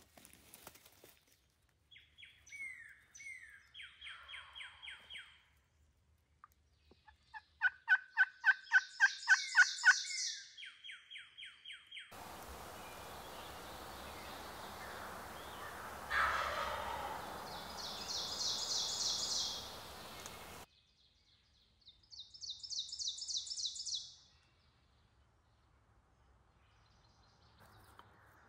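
Wild turkeys gobbling repeatedly at close range, each gobble a quick rattling run of notes, the loudest about eight to ten seconds in. A steady hiss runs through the middle of the stretch.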